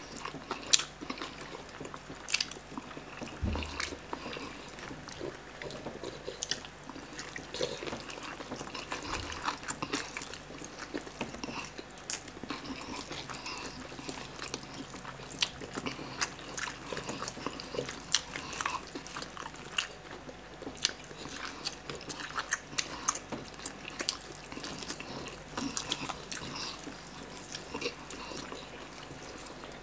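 Two people eating whole roast chickens with their hands: fast chewing and mouth noises mixed with meat being pulled from the bone, heard as many short, irregular clicks throughout.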